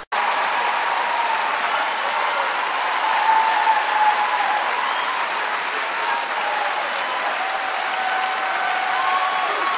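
Large concert audience applauding and cheering: dense, steady clapping with voices calling out over it, cutting in abruptly at the start.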